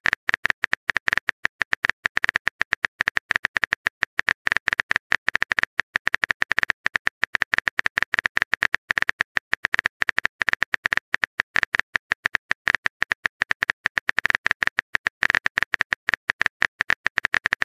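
Simulated phone-keyboard typing sound effect from a texting-story app: a rapid, steady stream of short sharp key clicks as a message is typed.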